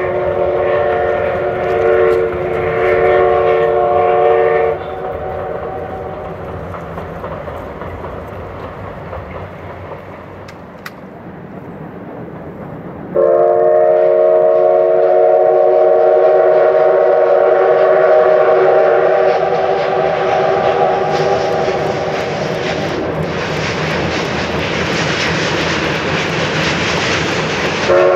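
Steam whistle of a double-headed C11/C10 steam train: a long blast of several tones sounding together, ending about five seconds in, followed by the quieter, fading sound of the passing train. Another long whistle blast starts suddenly about halfway and runs into the loud exhaust and running noise of the two working locomotives.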